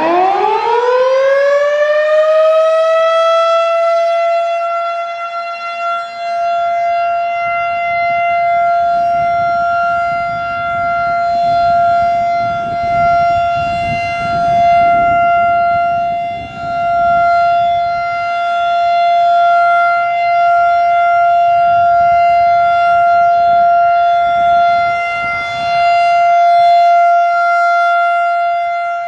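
Federal Signal 2001-DC outdoor warning siren winding up, its pitch rising over about three seconds to a loud, steady alert tone. The tone then holds while its loudness swells and fades as the siren head rotates.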